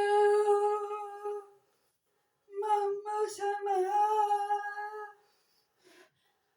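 A high-pitched voice holding two long sung notes, the second slightly wavering, with a silent gap between them.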